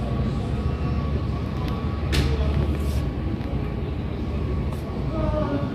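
Background noise of a large shop: a steady low rumble with faint distant voices, and a single sharp click about two seconds in.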